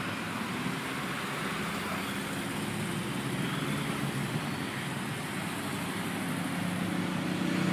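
Steady road traffic noise of vehicles going by, growing gradually louder near the end.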